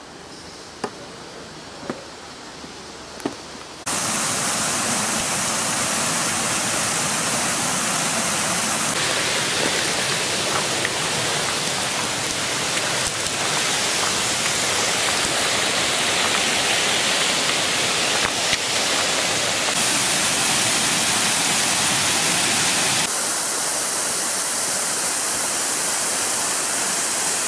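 Water cascading over a stone weir in a mountain stream: a loud, steady rush that starts abruptly about four seconds in and shifts in tone a few times. Before it there are a few quiet seconds with some sharp taps.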